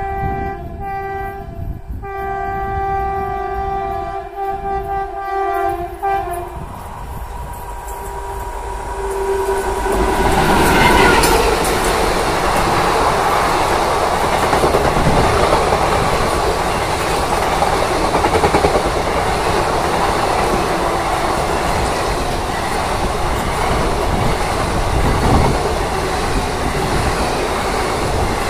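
Indian Railways WAP-4 electric locomotive approaching at about 100 km/h, sounding its horn in a long blast broken twice in the first six seconds and a shorter blast around nine seconds. From about ten seconds in, the express's coaches rush past close by at speed, a loud steady roar with wheel clatter over the rail joints.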